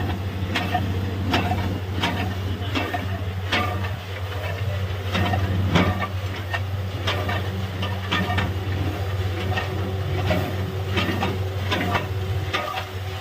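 Borewell drilling rig running: a steady low engine drone with irregular sharp knocks over it.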